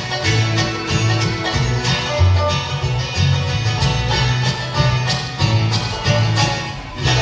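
Bluegrass band playing an instrumental passage with no singing: banjo and guitar picking over bass notes.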